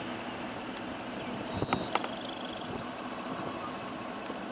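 Steady hum of a car idling, with two short clicks a little under two seconds in.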